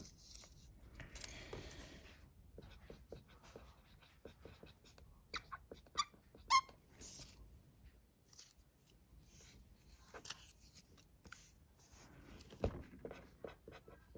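Felt-tip marker pen writing on glossy sticker paper: faint, scratchy strokes, with a few short squeaks of the tip about halfway through. A single soft knock on the desk comes near the end.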